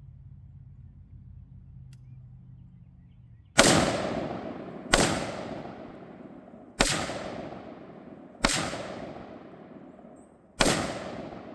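Palmetto State Armory AR-15 rifle firing five single aimed shots of 65-grain full metal jacket ammunition, spaced about one and a half to two seconds apart. Each shot is a loud sharp crack followed by a long echoing decay. The first comes about three and a half seconds in.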